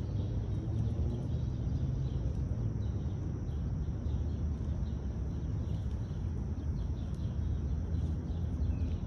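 Outdoor ambience: a steady low rumble with faint, repeated bird chirps above it.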